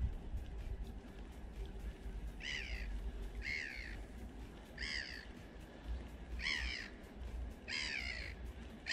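A crow cawing: five short harsh calls, each falling in pitch, about a second and a half apart, starting a couple of seconds in.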